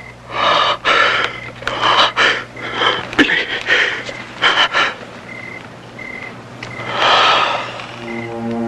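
A man gasping and panting in about five ragged, harsh breaths. A music cue comes in near the end.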